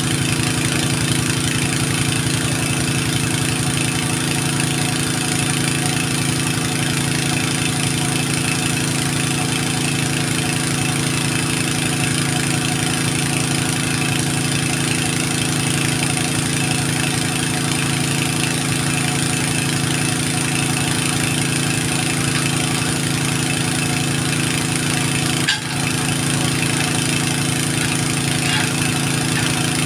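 An engine idling steadily, with a brief dip about three-quarters of the way through.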